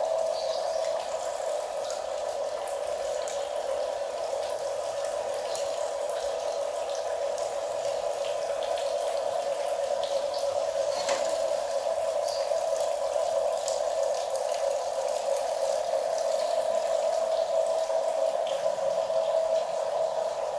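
Small electric motor of a radio-controlled toy construction model running steadily with a constant whine, with scattered light clicks and rattles.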